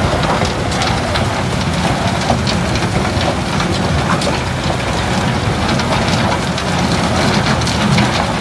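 Arjes Impaktor 250 mobile impact crusher running and crushing concrete rubble: a dense, continuous clatter of broken concrete pieces over the steady hum of engines. The Cat 312F excavator's bucket is working in the crusher's hopper.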